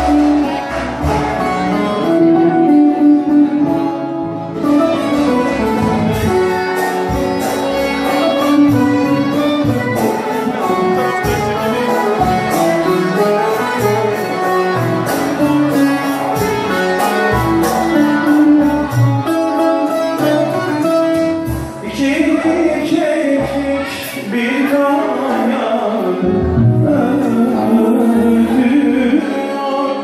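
Live Turkish folk music: a bağlama played in rapid plucked strokes, with a violin and a keyboard-like instrument accompanying.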